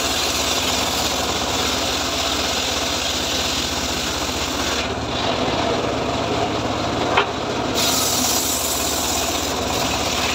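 Homemade engine-driven saw bench ripping teak planks: a steady engine hum under the rasp of the blade in the wood. The rasp thins for a few seconds around the middle, with one sharp click near that point.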